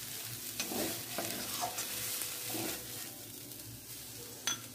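Dry-shrimp and onion mixture sizzling in oil in a metal kadai while a steel spatula scrapes and knocks against the pan several times. The sizzle fades in the second half as the pan comes off the heat, and a sharp knock comes near the end.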